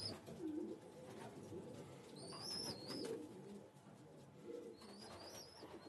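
Domestic pigeons cooing softly at intervals, with a few short high chirps in between.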